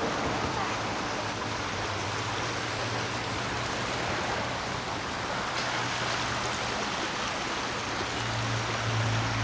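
Creek running high: a steady rush of flowing water. A low steady hum comes in a couple of seconds in and grows louder near the end.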